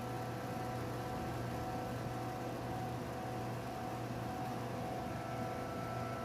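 BUMA BFD 45 screw air compressor (45 kW) running steadily: a constant low hum with a few steady whining tones over an even rushing noise.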